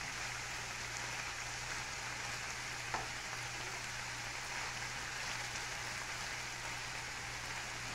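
Longaniza sausage and mushrooms sizzling in a nonstick frying pan while being stirred with a plastic spatula, a steady even hiss with a low hum underneath. One light tap of the spatula about three seconds in.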